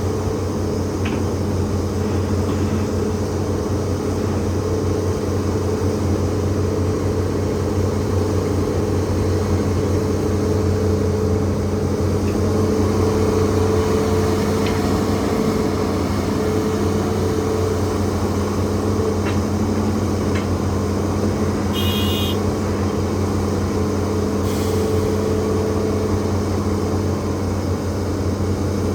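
Hitachi ZAXIS200 hydraulic excavator's diesel engine and hydraulics running at a steady pitch, with a few faint clicks and one brief high-pitched sound about two-thirds of the way through.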